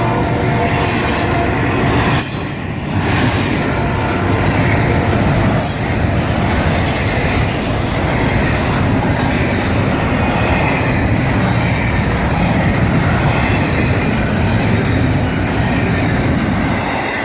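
Long freight train rolling past close by: a steady rumble and rattle of the cars with wheel squeal and clickety-clack from the rail joints. In the first two seconds a steady pitched tone sounds over it, then the level dips briefly before the cars run on.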